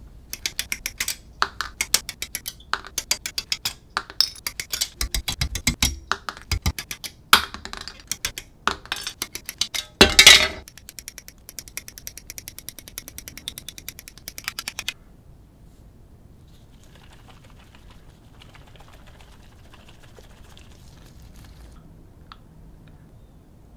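Rapid, dense clicking and snipping of small plastic model-kit parts being cut from their runners with side cutters and handled, in fast motion, with one louder rustle about ten seconds in. The clicking stops about fifteen seconds in, leaving only a faint hiss.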